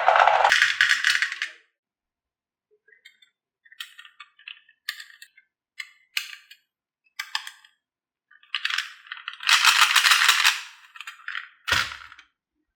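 Marbles rolling and clattering down a wooden HABA marble run: a rattling run at first, then scattered single clicks, then a second long clattering run and a sharp knock near the end.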